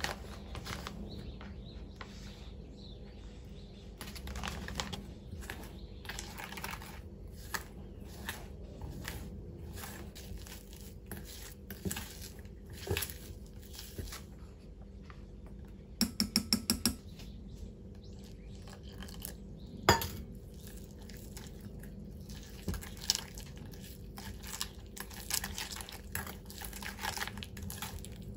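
Thick okara batter being stirred in a ceramic bowl: the utensil scrapes and knocks against the bowl's side, with a quick run of about six taps a little past halfway and one sharp knock a few seconds later.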